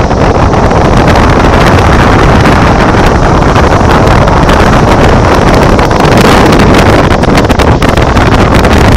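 Loud wind buffeting the microphone on a moving tour boat, a steady, heavy rumble that covers the boat's own running sound.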